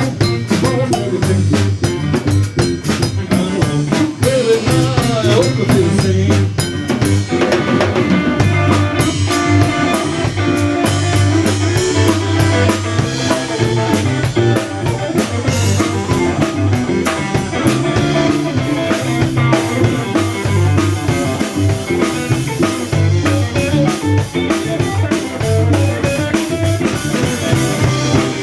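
Live blues-rock band playing an instrumental stretch between sung lines: drum kit with snare and rimshot hits over electric guitar and a steady low bass line.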